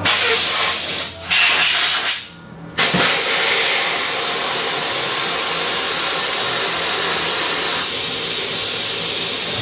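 Loud hiss of compressed air blowing from an air line, broken off briefly about a second in and again for about half a second just after two seconds, then running steadily.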